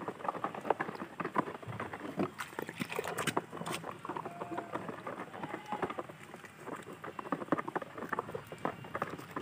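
A hand sloshing and splashing in a metal washtub of soapy water while scrubbing a toy, with irregular small splashes and drips.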